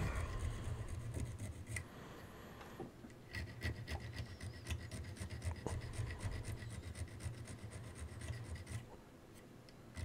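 Small flat hand file rasping across the metal lugs of a rotary switch, in quick back-and-forth strokes, filing the lugs down so the switch's metal back plate can be prised off.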